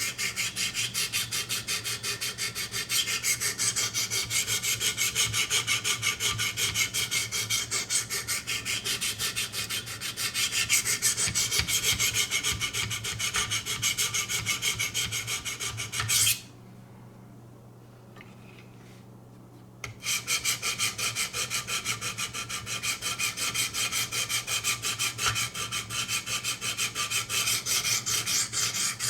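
Diamond sharpening stone rubbing back and forth over a VG-10 knife edge in quick, even strokes, grinding the bevel to raise a burr. The strokes stop for about three seconds a little past the middle, then start again.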